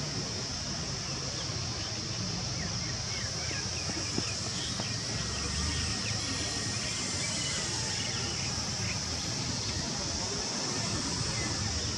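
Outdoor ambience: a steady high-pitched insect drone over a low rumble, with faint chirps here and there.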